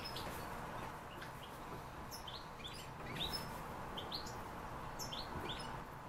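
Small cage birds chirping: a scattered string of short, high, rising chirps, coming more often in the second half, over a faint steady room hiss.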